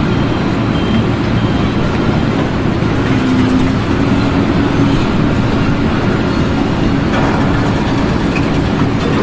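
Heavy machinery engine running loudly and steadily, with faint short beeps repeating over it.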